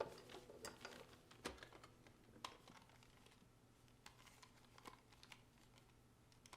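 Near silence with faint, scattered light clicks and taps, irregular and thickest in the first few seconds.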